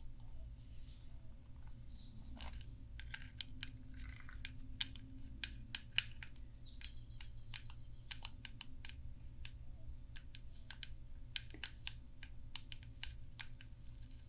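Light, gentle tapping on a brush: many quick, irregular taps, often in close runs. A low steady hum runs underneath.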